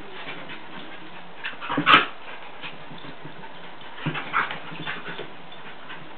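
Dogs play-fighting, a Jack Russell terrier and a collie, with short vocal outbursts. The loudest comes about two seconds in, and another cluster follows just after four seconds.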